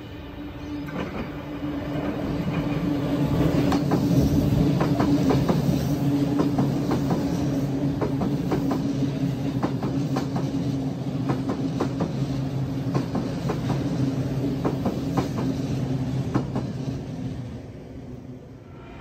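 Sydney Trains electric train running past, with a steady hum and clusters of clicks from wheels crossing rail joints. It builds over the first few seconds and fades near the end.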